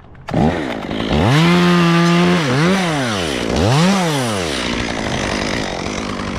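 Two-stroke chainsaw revving: the engine climbs to full throttle and holds briefly, then is blipped twice, its pitch dropping and rising each time, before falling back to a lower, rougher running sound.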